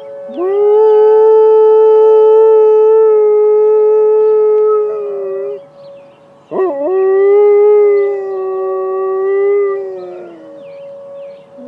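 Malamute–Great Dane mix dog howling in answer to an emergency siren, two long howls each held for several seconds. The second howl opens with a wavering swoop and sags in pitch at its end. The siren's steady tone sounds underneath.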